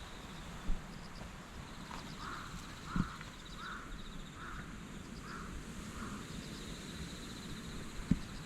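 A crow cawing about six times in a steady series, roughly a second apart, over a faint high insect trill. A few short dull thumps are the loudest sounds, near the start, in the middle and near the end.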